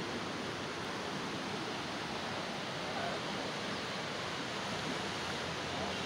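Fast-flowing mountain river rushing steadily over rapids.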